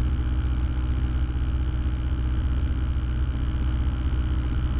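Cabin drone of a Cessna 172M's four-cylinder Lycoming engine and propeller in flight, a steady low hum with a hiss of airflow above it, the engine throttled back on final approach.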